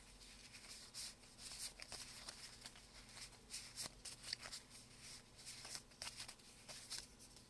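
Faint hand-shuffling of a small deck of oracle cards: a run of soft, quick card flicks and slides.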